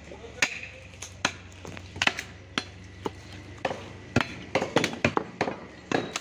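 Heavy cleaver chopping beef ribs on a wooden log block: a dozen or so sharp, irregular blows, coming quicker in the second half.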